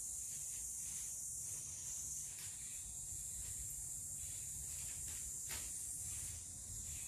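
Steady high-pitched hiss, with a faint click about two and a half seconds in and another about five and a half seconds in.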